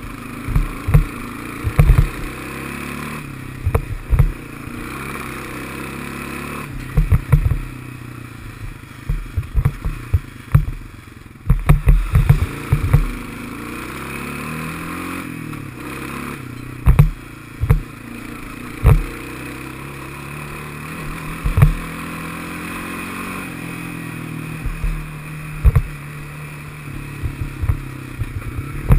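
Honda FourTrax ATV's single-cylinder four-stroke engine running on a trail ride, its pitch rising and falling with the throttle, under frequent loud low thumps and clattering as the machine jolts over rocks and ruts.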